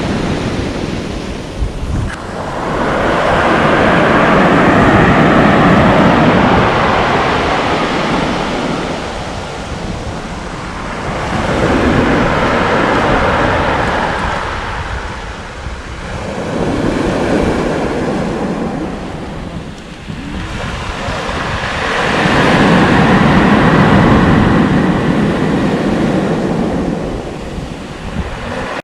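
Waves washing up a stony beach and dragging back through the stones, rolling and rattling them, in four swells about five to six seconds apart. Wind buffets the microphone.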